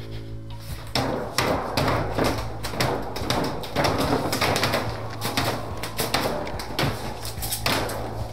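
Irregular clattering and knocking, a few times a second, of things being rummaged through and handled, over a steady low hum.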